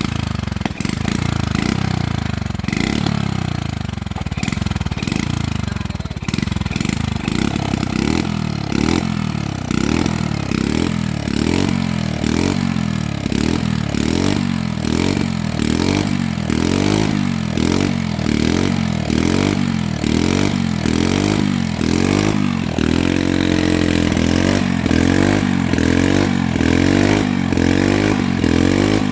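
Small petrol engine running loud, its pitch swinging down and up in a regular rhythm about every 0.7 s, then settling to a steadier, higher note from about two-thirds of the way in.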